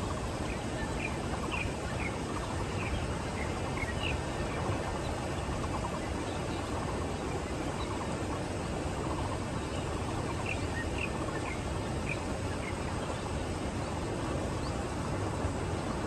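Steady low rushing of wind, with small birds giving short high chirps: a run of them in the first few seconds and another about ten seconds in.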